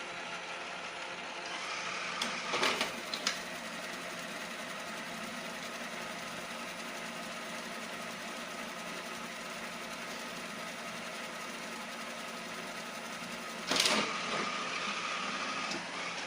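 Iseelife robot vacuum running with a steady motor hum. Short bursts of clattering come about two to three seconds in and again near the end, followed by a brief higher whine. The owner reports the vacuum faulty after two weeks of use.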